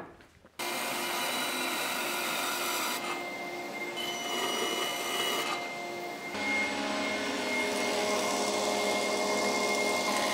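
Bandsaw running and ripping hardwood boards into strips. About six seconds in it gives way to a combination planer-jointer running as a board is fed over its cutterhead. The sound starts abruptly and changes character at several edit cuts.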